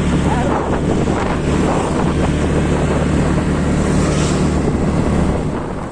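Wind buffeting the microphone over the steady low drone of a vehicle engine running at an even speed, heard from the moving vehicle.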